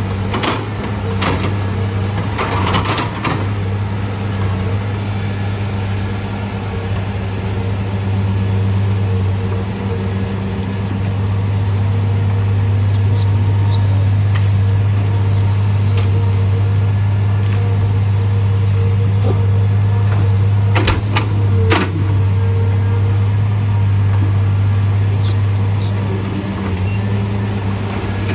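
Caterpillar 325 log loader's diesel engine running steadily with a low, even hum, a little louder through the middle as the grapple lifts a log. A few sharp knocks come in near the start and again about three-quarters of the way through.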